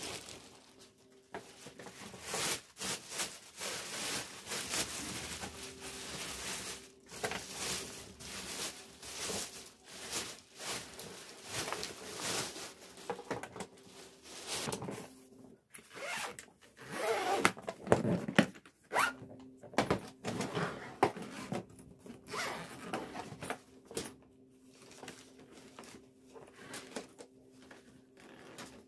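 Many short rasping, scraping strokes in quick, irregular succession, over a faint steady hum.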